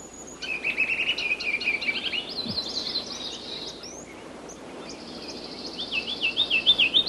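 Small songbird singing: a run of quick, repeated high chirps, then a second run near the end, over a faint outdoor hiss.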